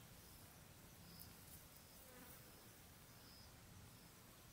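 Faint insect chirping: short, high chirps repeating every second or two over a quiet low hum.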